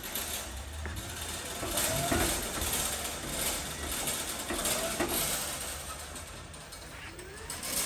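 Battery-electric pallet truck driving under load: the drive motor whines, rising in pitch several times as it moves off and speeds up, over a low hum, with scattered clicks and rattles.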